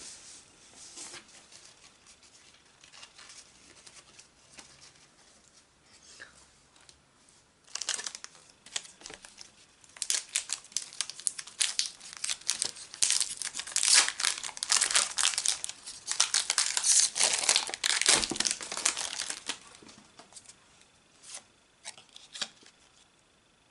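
Pokémon TCG Unified Minds booster pack being torn open by hand: the foil wrapper crinkles and tears in a dense run of crackling from about eight seconds in to nearly twenty. Near the end, a few light clicks as the cards are handled.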